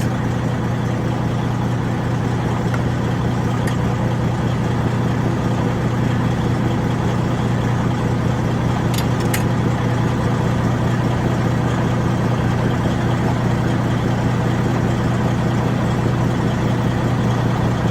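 Freightliner Century semi-truck's diesel engine idling steadily, with a couple of faint clicks about nine seconds in.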